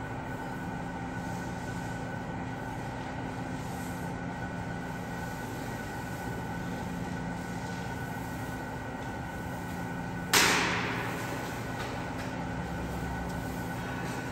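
Steady mechanical hum with several held tones, like building machinery running. About ten seconds in, one sudden loud rush of hissing noise cuts in and dies away over about a second.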